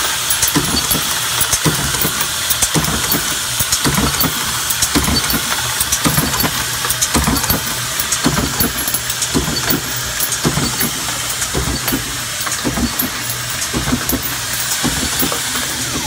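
Camdex automatic ammunition loading machine running: a steady motor hum under a constant, rapid, uneven clatter of metal clicks.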